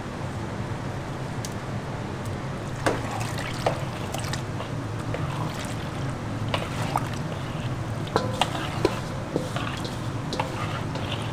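Cream poured from a jug into a stainless steel bowl of mashed pumpkin and stirred in with a spatula. Sharp knocks and scrapes of the spatula against the bowl come from about three seconds in, over a steady low hum.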